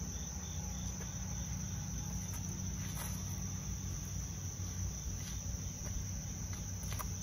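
Insects chirping in a steady, high, unbroken drone, with a low rumble underneath.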